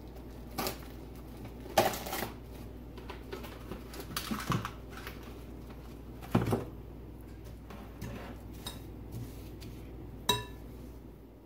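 Scattered knocks and clinks of a glass mixing bowl of dough, covered in plastic wrap, being handled on a countertop, over a steady low hum. A sharper clink near the end rings briefly.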